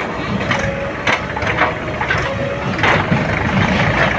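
Gravel crunching and clattering in irregular knocks, several sharp ones about a second apart, over a steady background rumble.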